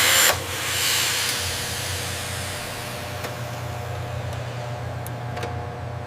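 A loud hissing rush cuts in abruptly and eases after about half a second into a steady hiss over a low hum, with a few faint clicks.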